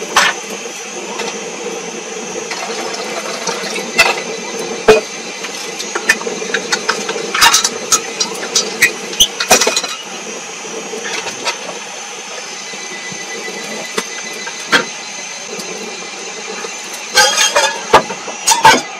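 Scattered clinks and knocks of a metal cup and bottle being handled on a wooden log table, with a cluster of quick knocks near the end, over a steady background hum.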